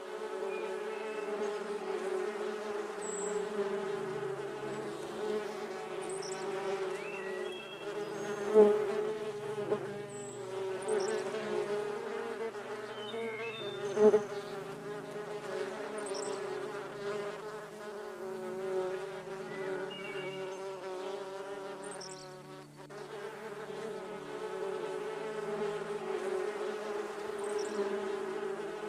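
Steady, continuous insect buzzing, like bees or flies in flight, holding an even pitch, with two short sharp clicks about nine and fourteen seconds in.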